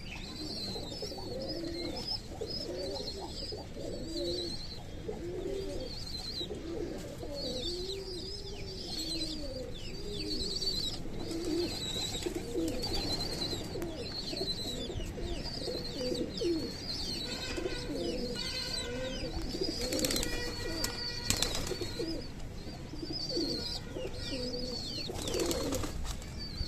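Domestic pigeons cooing over and over in their nest boxes, mixed with many short, high squeaks of squabs begging to be fed. Near the end there are sharp flaps of a pigeon's wings.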